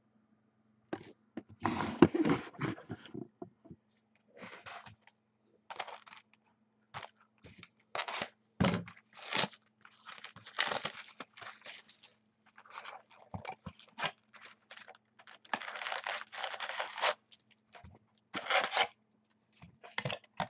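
Trading card packs being torn open by hand, the foil wrappers crinkling and the cards rustling, in irregular bursts of rustling and tearing with short pauses between them.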